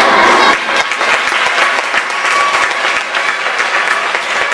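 An audience of schoolchildren applauding, a dense steady clapping.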